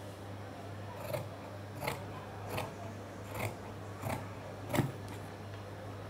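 Large tailor's shears cutting through khaki cloth: six crisp snips, about one every 0.7 seconds, over a low steady hum.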